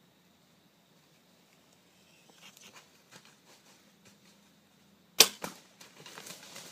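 A bow shot at a deer: a loud sharp crack of the bowstring releasing a little past five seconds in, then a second crack a quarter second later as the arrow hits. The hit deer then bolts, crunching through dry fallen leaves.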